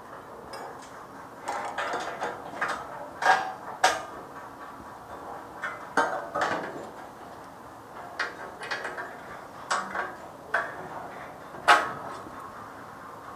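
Steel plates clanking and scraping against steel framing as they are handled and set in place: a dozen or so scattered metal knocks, the loudest near the end.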